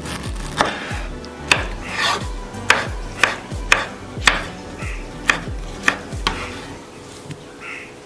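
A knife working through fruit, in sharp strokes about two a second, some with a rasping scrape, that stop about six and a half seconds in.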